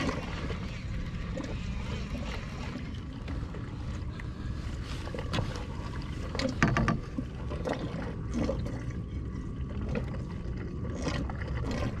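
Water lapping and sloshing against a plastic kayak hull, with scattered clicks and knocks from a fishing reel and tackle being handled as the line is reeled up and checked. The loudest knock comes about seven seconds in.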